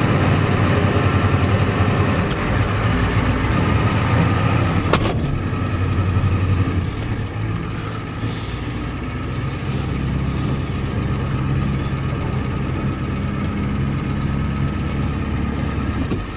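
1993 Ford F-250's 7.3-litre IDI non-turbo diesel V8 running rough under load as the truck is put in gear and driven off, heard from inside the cab. The engine is louder for the first several seconds, then eases off, with a sharp click about five seconds in. The owner believes the injection pump and fuel pump are failing.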